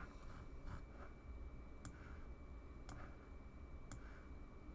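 Computer mouse clicking: several sharp, faint clicks about a second apart, over a faint steady electronic tone.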